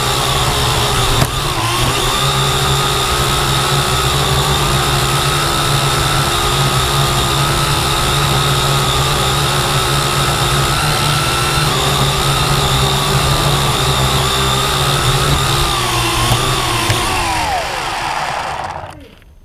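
Quadcopter drone's electric motors and propellers whirring steadily in a hover, then winding down in pitch and stopping near the end as it lands.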